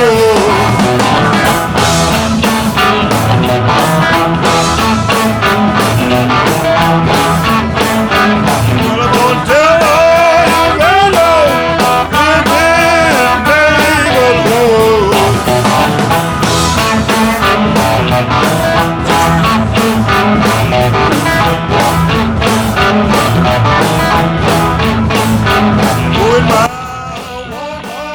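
Rock music soundtrack with guitar and a singing voice, a steady beat throughout; it drops sharply in level near the end.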